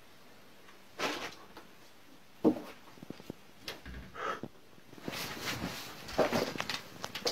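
Scattered knocks, clicks and rustles. The sharpest knock comes about two and a half seconds in, and a denser patch of rustling and knocking follows near the end.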